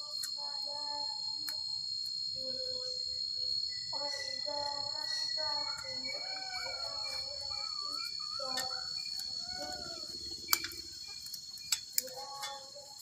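Steady high-pitched chirring of insects, with an indistinct pitched voice in the background over the first two-thirds. A few sharp metal clicks come near the end as the machete blade and its fittings are handled.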